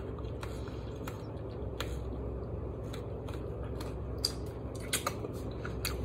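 A person chewing food with the mouth close to the microphone: faint, scattered wet mouth clicks over a steady low room hum.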